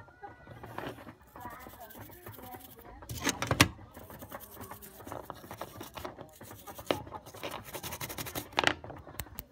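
Toothbrush bristles scrubbing the corroded circuit board of a pen drive, rapid rasping strokes in several spells. The loudest spell comes about three seconds in.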